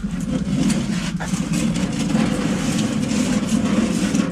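A vehicle engine idling steadily, with a single short click about a second in.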